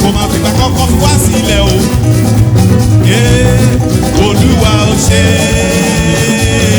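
Live church music: an anthem sung by a choir over band accompaniment with a strong bass line, the voices holding long, wavering notes.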